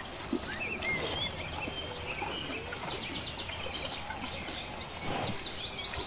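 Several birds chirping and calling over a steady hiss of outdoor background noise, with a quick run of short, rapid chirps in the middle. A brief rustle comes about five seconds in.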